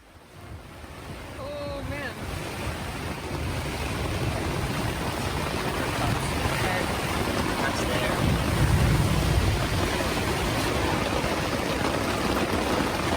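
Strong wind rushing steadily, fading in over the first few seconds, with a heavy gust buffeting the microphone about eight seconds in.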